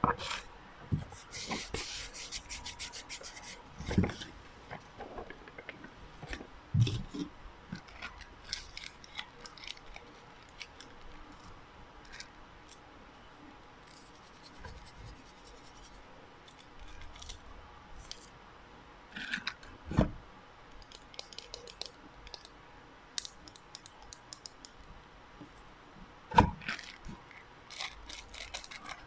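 Small plastic bags of foam beads and sprinkles, and paper inserts, crinkling and rustling as they are handled over a box of shredded paper. Several louder knocks stand out among the crackling.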